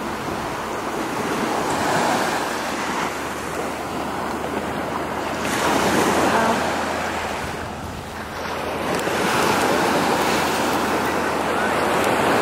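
Wind and rushing water, rising and falling in slow swells about every four seconds, with a faint steady low hum underneath.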